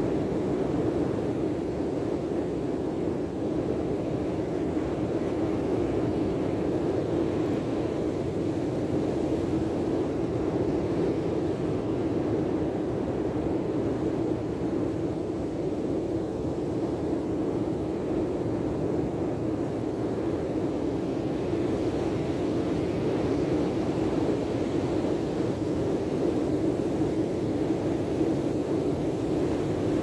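Steady, unbroken roar of surf breaking on a sandy beach.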